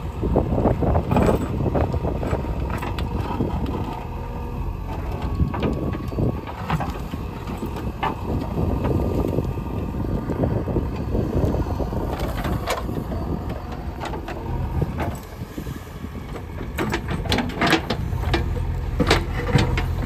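JCB 3DX Xtra backhoe loader's diesel engine running under load as the backhoe arm digs. The steel bucket clanks and scrapes against stones and soil several times, with a cluster of knocks near the end.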